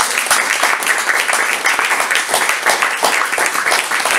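A small group of guests applauding: steady, dense hand clapping.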